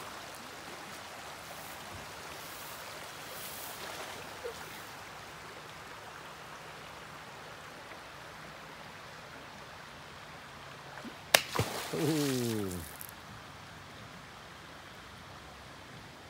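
Stream water flowing steadily. About eleven seconds in there is one sharp click, followed by a brief voice that falls in pitch.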